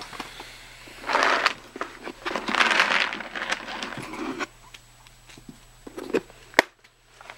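Plastic treat bag crinkling and rustling in two bursts, with smaller crackles and a sharp click near the end.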